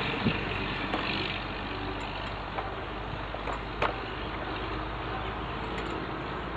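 Steady low background rumble, with a few sharp metal clicks and knocks as the steel T-handle clamp screw of a chainsaw-mill jig is turned tight against the chainsaw bar.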